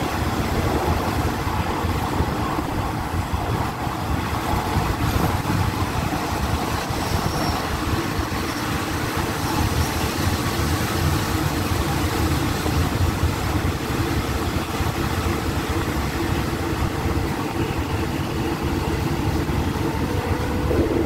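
Passenger train carriage running along the track, heard from an open window: a steady rumble of the running gear on the rails.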